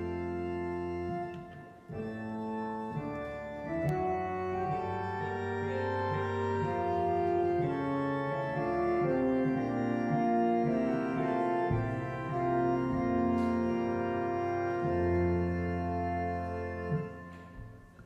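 Church organ playing slow sustained chords, with no singing, dying away near the end.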